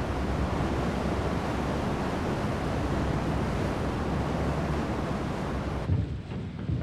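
Steady rushing of rough sea and wind, a dense hiss of surf. Near the end the hiss drops away, leaving only a low rumble.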